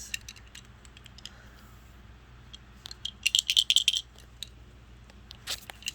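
Small plastic brick pieces rattling loose inside a hand-shaken, brick-built toy Full Bottle. There is a quick burst of clicking rattles about three seconds in, with a few lighter clicks before it and near the end.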